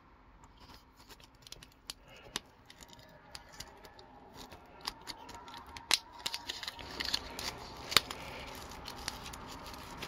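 Fingers picking at and peeling the cellophane shrink-wrap on a sealed stack of trading cards: scattered sharp plastic clicks and crinkles that grow busier in the second half, with two louder snaps.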